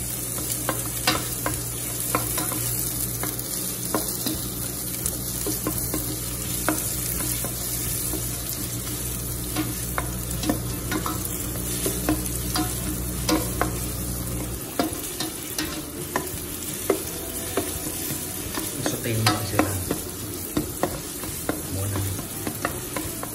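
Chopped onion and garlic sizzling in oil in a stainless steel pan while being stirred with a spatula, with frequent clicks and taps of the spatula against the pan. A low steady hum runs underneath and cuts off about two-thirds of the way through.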